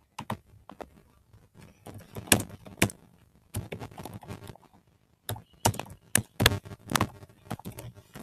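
Irregular sharp clicks and dull knocks from handling at a computer desk, a few at a time with gaps between, thickest in the second half.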